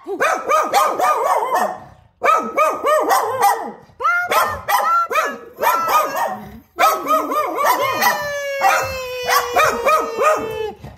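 Small long-haired dog barking rapidly in quick runs: alert barking at a person approaching the house. From about 8 seconds in, a long, slowly falling howl-like note runs for about three seconds under the barks.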